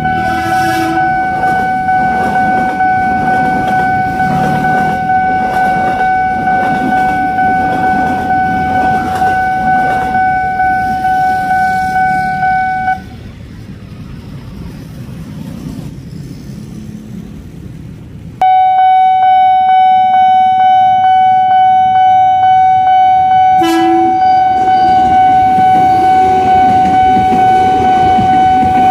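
Nippon Signal railway level-crossing alarm sounding its steady, repeating electronic warning tone over rumbling road and rail traffic. It cuts out for a few seconds midway, then resumes louder, as a commuter train passes.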